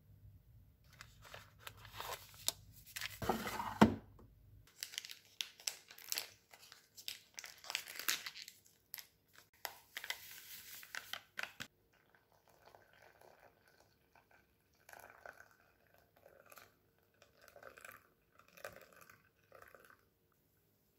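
Plastic snack packets rustling and crinkling as a cocoa stick sachet is picked out and torn open, then the powder is shaken into a glass mug. Later comes a softer stretch of water being poured into the mug.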